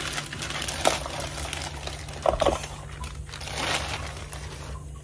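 Plastic bag rustling and crinkling as a whole fish is handled in it over a metal pot, with a few sharper handling noises.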